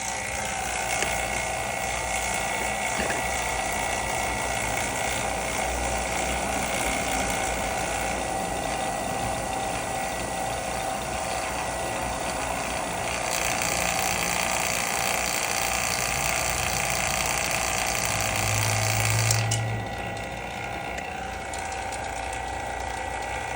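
Vacuum pump running steadily with a mechanical rattle and hiss. About 19 seconds in there is a brief low hum, then the high hiss falls away and the sound gets a little quieter.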